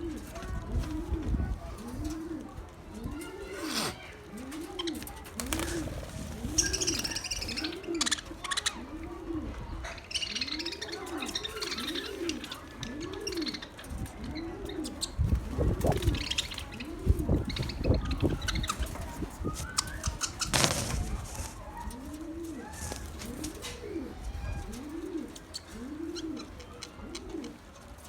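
A dove or pigeon cooing over and over, a steady run of low rising-and-falling notes about one a second, pausing midway and then resuming. There is fainter high chirping from small birds and a few low thumps in between.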